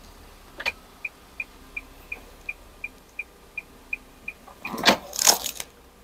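A parked car's electronic ticking chime, short even ticks about three a second, running for several seconds and then stopping. Near the end come a loud clunk and a rustling noise.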